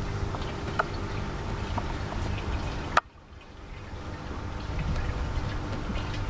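Water swirling and trickling in a vortex demonstration tube as it drains down through a central hole, with a low wind rumble on the microphone. A sharp click about three seconds in, after which the sound drops away and slowly builds back.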